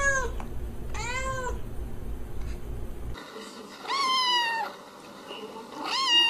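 A cat meows, then a kitten gives two higher-pitched meows, the second the loudest.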